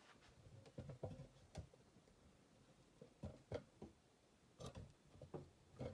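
Faint, scattered small clicks and light knocks of metal lock-picking tools being repositioned in a padlock's keyway.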